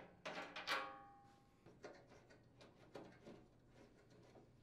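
Faint clicks and knocks of the chipper shredder discharge chute's retaining knob screws being unthreaded and handled, with one short ringing tone under a second in that fades within about half a second.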